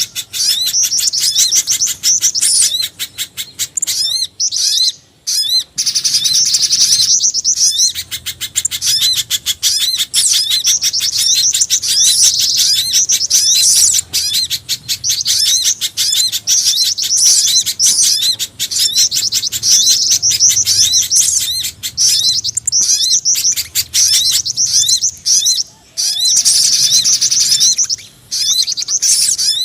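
Bird-luring call track: a mix of small-bird calls sold as mountain spiderhunter and jingjing batu calls. It is a dense, unbroken stream of rapid, high, rising chirps, broken by a few brief pauses.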